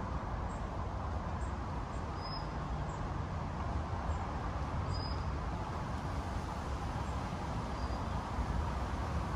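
Steady outdoor rushing noise, heaviest in a low rumble, with faint short high chirps every second or so.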